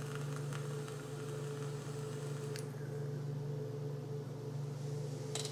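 A faint airy hiss of a drag being drawn through an e-cigarette dripper atomizer for about two and a half seconds, then a soft exhale of vapour near the end. Both sit over a steady low hum that is the loudest thing throughout.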